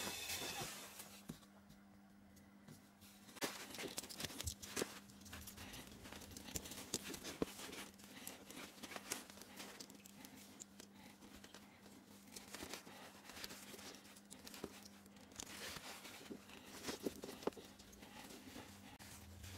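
Faint rustling and small clicks of fingers handling a washing-machine motor's plastic terminal connector and its wires, over a faint steady low hum.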